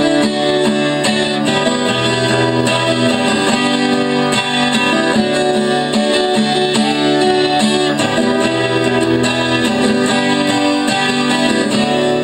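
Twelve-string acoustic guitar, built at the Lunacharsky factory in 1978, strummed with a pick in a steady rhythm, moving through chord changes.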